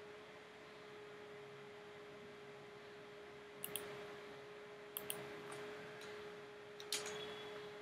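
Computer mouse buttons clicking a handful of times, several in quick pairs, over a faint steady hum.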